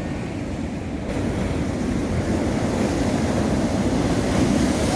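Sea surf: waves rushing onto the beach, with wind buffeting the microphone. The rush grows louder about a second in and keeps building toward the end.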